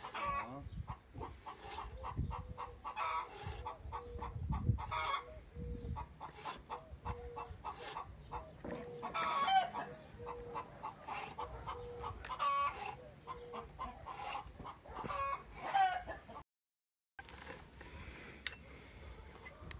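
Chickens clucking in quick, repeated short calls, with a few louder calls standing out.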